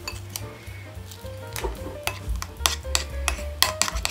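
A spoon stirring thick cream-cheese frosting in a ceramic bowl, clicking and scraping against the bowl, with the clicks coming more often in the second half. Quiet background music plays underneath.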